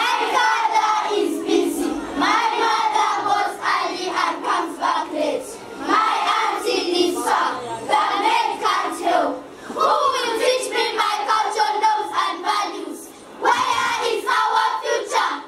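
A group of children's voices chanting a poem together, loud, in phrases with short breaks about nine and a half and thirteen seconds in.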